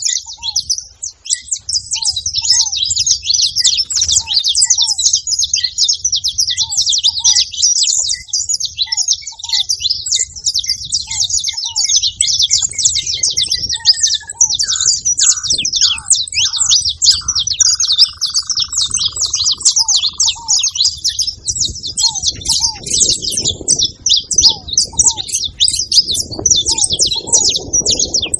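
A group of saffron finches chirping together in a dense, continuous chatter of high, quick notes. Beneath it a lower call repeats about once a second, and in the middle a short run of lower notes slides down in pitch.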